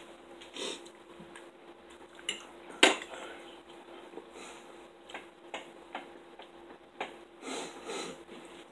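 Cutlery clinking and scraping on dinner plates during a meal: a scattered series of sharp clicks, the loudest a bit under three seconds in, with a few softer scuffs near the end.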